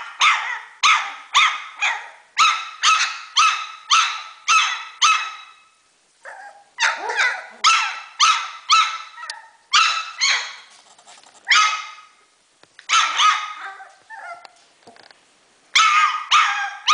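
High-pitched Pumi barking, about two barks a second in runs of several, with short breaks about six seconds in and again between about twelve and fifteen seconds.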